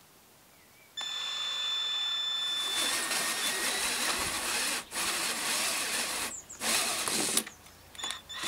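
Cordless drill with an 86 mm hole saw cutting through the plastic wall of a Pelican 1300 case. About a second in the drill starts with a high motor whine, then the saw bites and grinds through the plastic, stopping briefly a few times in the second half.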